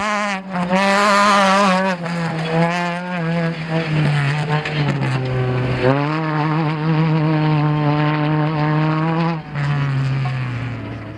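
Off-road race vehicle engine running at high revs, its pitch held fairly steady with a few brief dips and a rise about six seconds in, then fading away near the end.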